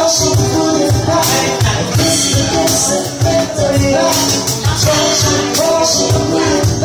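Live acoustic band: a woman singing a held, gliding melody into a microphone, over a steady low beat and a repeated shaker-like rhythm.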